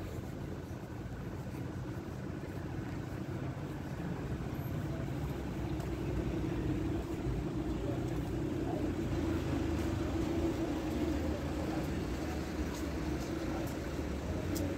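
Street traffic: a motor vehicle's low rumble over the city's background noise, growing louder around the middle as it passes close.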